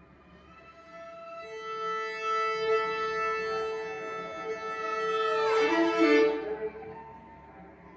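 Viola and cello playing improvised music: quiet at first, then a long held bowed note, with a higher line sliding steeply down in pitch about five to six seconds in at the loudest point, before the sound fades.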